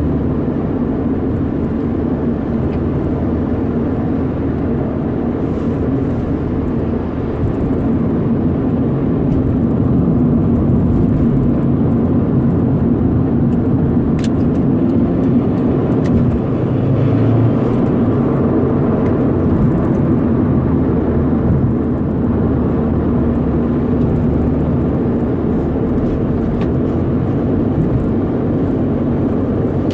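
Totally stock 2011 Subaru WRX, its turbocharged 2.5-litre flat-four engine running steadily with a continuous low hum, getting a little louder about eight seconds in.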